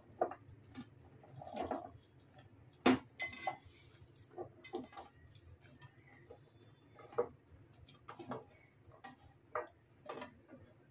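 Irregular knocks and clinks as pieces of raw green mango are dropped into a stainless-steel mixer-grinder jar and gathered off a steel plate, the loudest about three seconds in.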